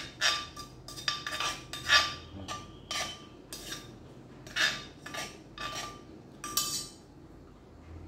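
Pounded long-bean salad being scraped out of a terracotta mortar: a quick series of short scraping strokes against the clay, with a few clinks, stopping about a second before the end.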